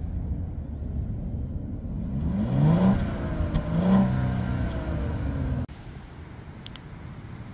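Audi Q7's 3.0-litre supercharged V6 revved twice in quick succession, its note rising sharply each time, then held at a steady hum. About two-thirds of the way through, the sound cuts off abruptly to a quieter steady hum.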